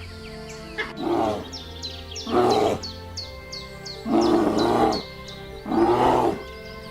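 Four loud animal calls, each under a second long and spaced a second or so apart, over background music.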